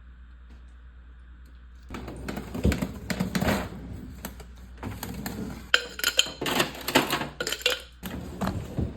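Irregular clicks, taps and clatter of dishes and utensils being handled, starting about two seconds in after a low steady hum.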